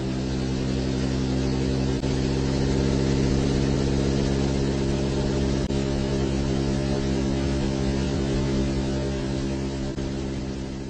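Vehicle engine running steadily with a low, even hum, fading out near the end.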